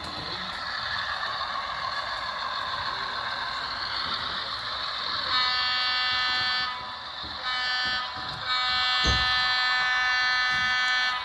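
HO scale Great Northern diesel switcher model with a sound decoder running, giving a steady running noise. About five seconds in its electronic horn sounds three times, long, short, then long. There is a brief low thump near the end.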